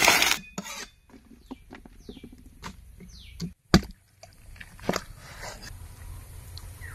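Cleaver knocking on a wooden cutting board while chicken breast is cut: scattered light taps, with one sharp knock about halfway through and another about a second later. Two short falling chirps sound faintly about two and three seconds in.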